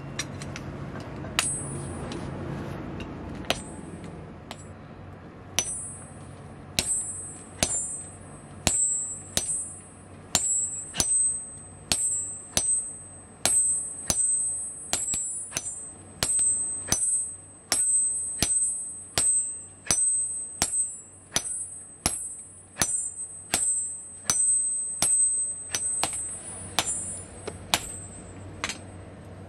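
Hammer blows on red-hot steel against an anvil during hand forging, each blow followed by a high, bell-like ring. The blows are sparse at first, then settle after about five seconds into a steady rhythm of about one and a half strikes a second.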